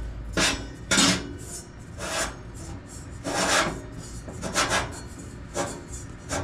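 Screw-on metal foot of a Bond Stove fire pit being turned by hand on the fire pit's metal body, a series of irregular rasping scrapes as it is tightened.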